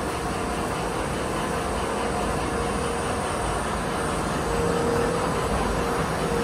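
Titan slitter-rewinder running at speed, slitting BOPP film into narrower rolls: a steady mechanical rush. A faint steady hum comes in about four and a half seconds in.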